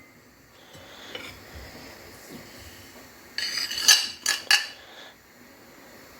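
Kitchenware clinking against a mixing bowl: a few sharp clinks and knocks with a short scraping rush, all bunched together about three and a half to four and a half seconds in.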